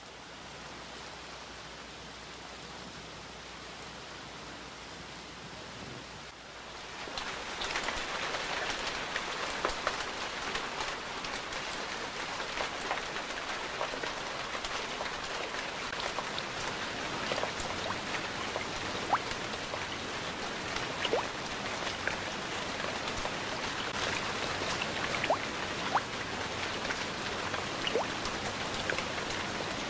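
Layered rain sound effects: a steady hiss of rain on a window pane, joined about seven seconds in by a louder interior rain-on-window recording with sharp individual drops ticking through it. Further rain layers, including rain falling on wood, build up the bed.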